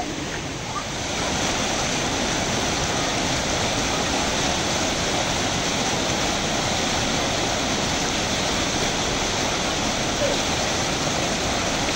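Rushing mountain stream: a steady hiss of fast-running water that grows louder about a second in.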